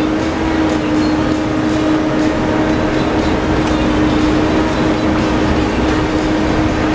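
Steady, loud mechanical drone: a constant low hum over an even rush of noise that does not change.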